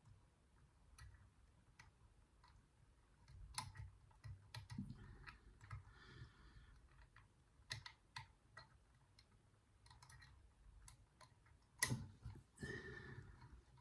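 Faint, irregular small metallic clicks and scrapes of lever-lock picks working the levers of a four-lever safe drawer lock under tension, with one sharper click near the end.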